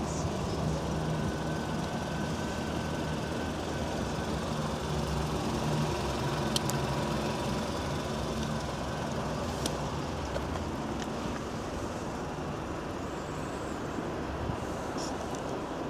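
Steady low motor-vehicle rumble, with a couple of sharp clicks partway through.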